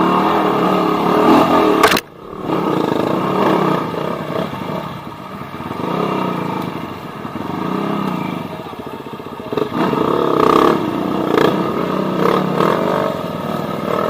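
Off-road dirt bike engines revving hard, their pitch rising and falling as they work over rough ground. There is a sharp crack about two seconds in, followed by a brief drop in level.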